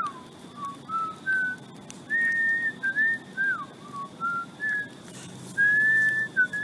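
A man whistling a slow tune through pursed lips: a string of single clear notes, some held and some sliding downward, with the longest held notes about two seconds in and near the end.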